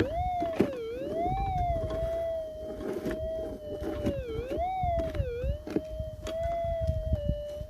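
Minelab GPZ 7000 metal detector's steady threshold hum, its pitch swooping up and down twice as the coil sweeps over a buried target. Scattered knocks and scrapes from digging, and low wind noise, sit underneath.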